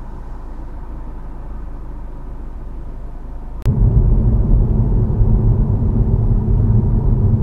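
Low, steady rumble of a car driving, road and engine noise. About halfway through there is a sharp click, and the rumble is suddenly much louder from then on.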